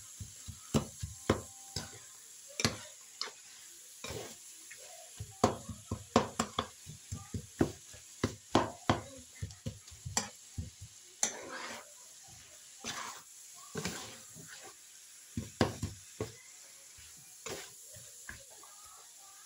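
Spatula scraping and tapping against a nonstick frying pan as it stirs and chops up scrambled egg with carrots and mushrooms: irregular clicks and short scrapes, busiest in the middle and sparser near the end, over a faint steady sizzle of the food frying.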